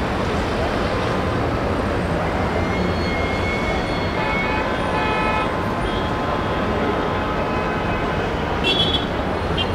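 Heavy city traffic below: a steady rumble of engines and tyres, with car horns sounding in the middle and a short high-pitched toot near the end.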